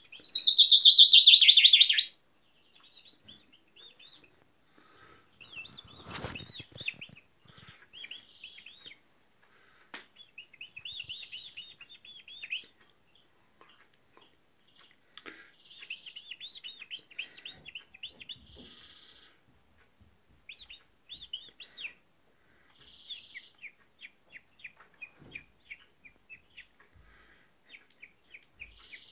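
Common chaffinch singing: a loud phrase falling in pitch in the first two seconds, then quieter song phrases and chirps throughout. A sharp knock sounds about six seconds in.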